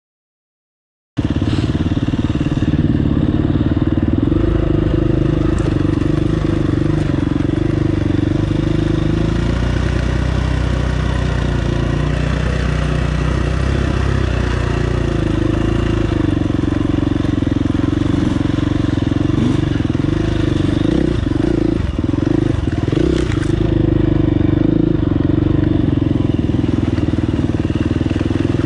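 Dirt bike engine running under way on a trail, heard from the rider's own bike; it comes in after about a second of silence and its pitch rises and falls a little with the throttle.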